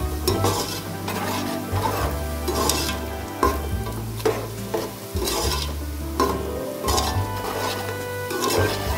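Sliced onions sizzling in hot oil in a large aluminium pot, frying toward brown, while a metal slotted spoon stirs them, scraping and knocking against the pot about once a second.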